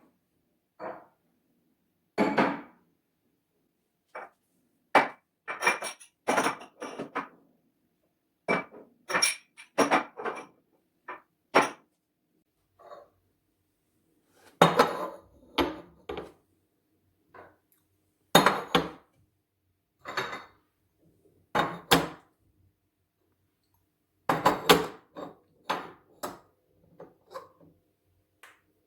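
Dishes and kitchenware being picked up and set down one after another, with irregular clinks and knocks, some ringing briefly, as a kitchen cabinet is emptied and rearranged.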